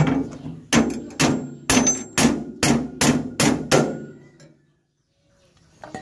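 Hammer striking a steel punch held on a rice harvester's cutter-bar knife section, about nine sharp blows at roughly two a second, stopping about four seconds in.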